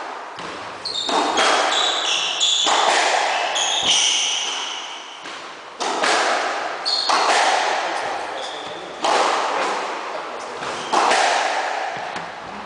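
Squash rally: the ball cracks off rackets and the court walls every second or two, each hit ringing on in the court's echo, with shoes squeaking on the wooden floor.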